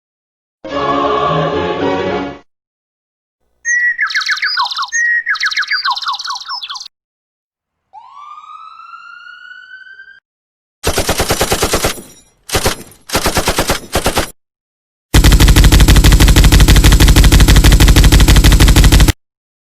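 A run of short, unrelated sound effects separated by silences: a noisy blast, a chirp that drops in pitch several times, a tone gliding upward, a stuttering rattle, and a very loud, even rapid rattle lasting about four seconds.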